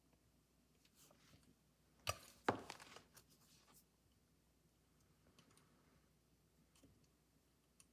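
Two sharp clicks about two seconds in, then a short clatter, as the small parts of a phonograph tone arm are handled and fitted together; otherwise very quiet, with a few faint ticks.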